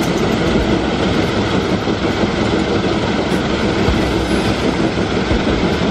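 Heavy vehicle running: a loud, steady rumble with clatter.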